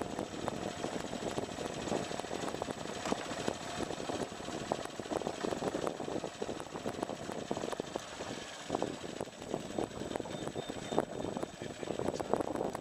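Boat's outboard motor running, a steady rumble with many small irregular knocks.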